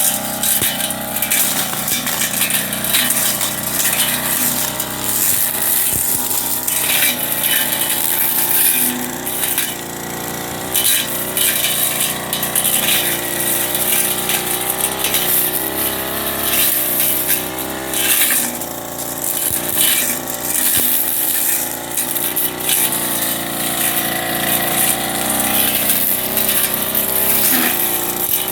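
Backpack brush cutter's small two-stroke engine running at high revs, its pitch rising and dipping as the blade swings through weeds, with irregular rasping hits as the cutting blade strikes grass and debris.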